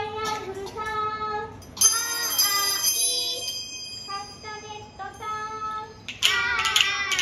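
Young children singing a song together in unison, with small handheld bells jingling along. About two seconds in, a bright metallic ring sustains for a second or so, and near the end the singing and jingling grow louder.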